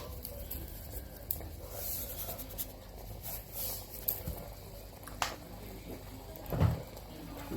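Quiet kitchen handling around a cooking pot: a few light clicks and taps, with a louder knock about six and a half seconds in, as salt is added to the rice.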